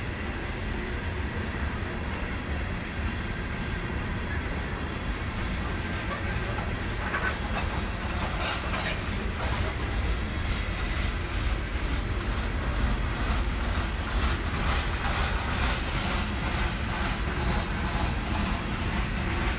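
Freight train of coal cars rolling past: a steady low rumble of steel wheels on rail. From about halfway, regular clicks of the wheels running over rail joints join it.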